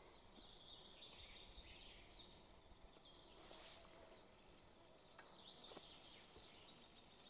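Near silence: faint outdoor ambience with a few faint bird chirps and two light clicks about five seconds in.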